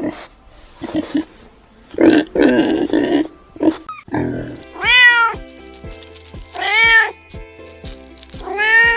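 Domestic cat meowing three times, each call rising then falling, about two seconds apart, over background music.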